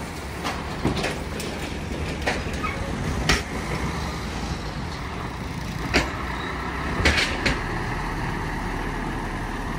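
Heavy lorry's engine running steadily, with several short sharp knocks at irregular moments.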